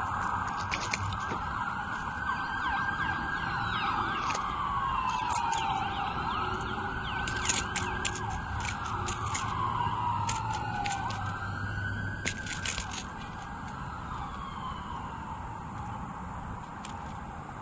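An emergency vehicle siren wailing, its pitch rising and falling in slow sweeps every few seconds, growing fainter in the last few seconds. Scattered sharp clicks sound over it.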